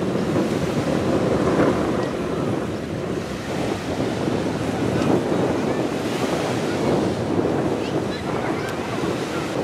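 Sea breeze rushing over the microphone: a steady, gusting noise that rises and falls in strength.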